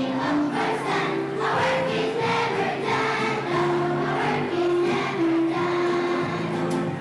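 Children's choir singing a song in unison, with notes held and stepping from pitch to pitch.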